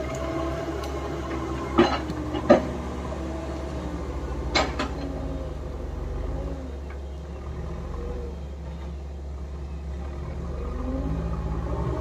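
Diesel engines of a backhoe loader and a tracked excavator running under load, their note rising and falling as they work. Three sharp knocks cut through: about two seconds in, again half a second later, and once more around four and a half seconds.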